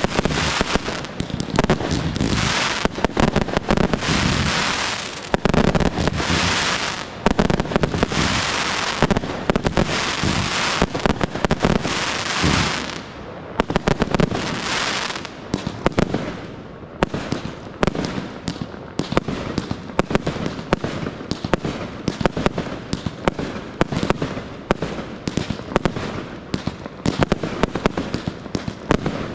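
Fireworks display: a rapid barrage of aerial shells launching and bursting, with dense hissing and crackling. About halfway through, the crackle thins out and the bangs come more separately.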